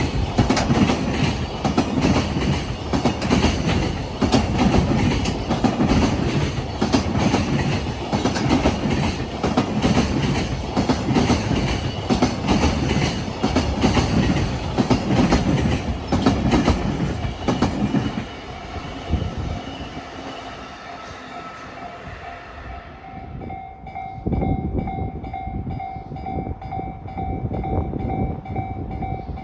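A freight train passing close by, its wheels clattering over the rail joints in a steady, heavy rhythm. About 18 seconds in the train noise falls away. Near the end a level crossing's warning bell rings steadily over a returning low rumble.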